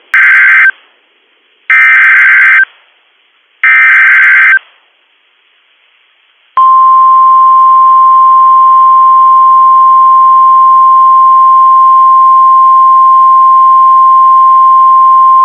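Emergency Alert System SAME header: three loud bursts of data tones about a second apart, then after a short pause the long steady 1050 Hz NOAA Weather Radio alert tone, held for about nine seconds, which opens a National Weather Service tornado warning.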